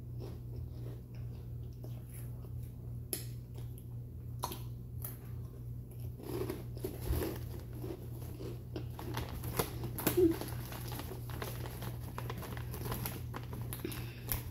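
A person chewing crunchy spicy chips: irregular crunches and crackles, denser and louder in the second half, with a sharp pair of crunches about ten seconds in, over a steady low hum.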